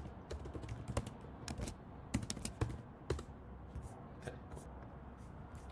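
Typing on a computer keyboard: a run of irregular keystroke clicks, several a second, thinning out near the end.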